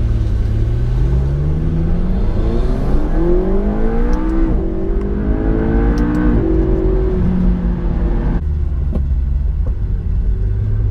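McLaren 650S twin-turbo V8 accelerating hard: the engine note climbs, drops sharply at an upshift, climbs again through the next gear, then eases off near the end as the driver lifts.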